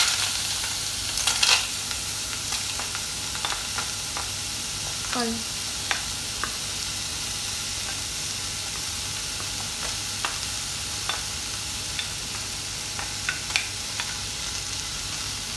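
Chopped strawberries sizzling steadily in a hot stainless steel pot, starting with a loud burst as the fruit lands in the pan. A wooden spatula scrapes and taps on a plate with scattered short clicks as the last pieces are pushed in.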